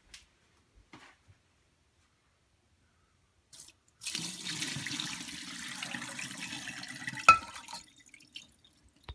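Whey poured from a saucepan, splashing through a metal mesh strainer into a sink. It starts suddenly about four seconds in, runs for about four seconds, and has one sharp knock near the end, the loudest moment.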